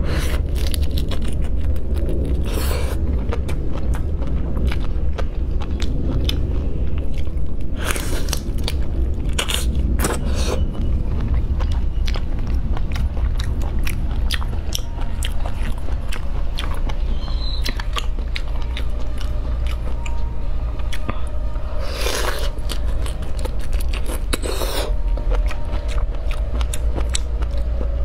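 Close-miked eating: raw prawn shells cracked and peeled apart by hand, and the prawn meat and fish roe chewed, with many small clicks and crackles and a few louder cracks. A steady low hum runs underneath.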